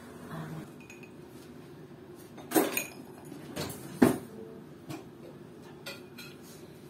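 A spoon and kitchen containers clinking and knocking around a plastic mixing bowl of flour as salt is added to the dough: a handful of separate sharp knocks, the loudest about four seconds in.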